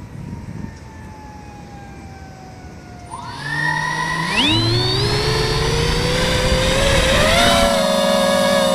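Brushless motors of a mini FPV quadcopter spinning up: about three seconds in, several whines rise sharply in pitch together, then settle into a steady, loud multi-tone whine, over rumbling noise.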